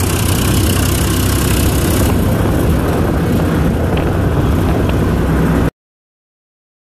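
Farm tractor's diesel engine running steadily under way, heard from the driver's seat as a low, even hum. It cuts off suddenly near the end, leaving silence.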